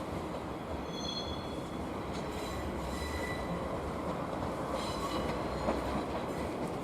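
Train running on the rails with a steady rumble, with short high wheel squeals about a second in and again around three seconds.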